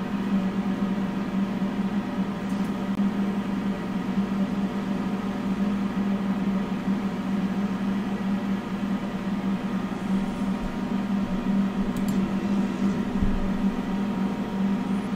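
Laser cutter setup idling with a steady low hum, with a couple of faint clicks near the end.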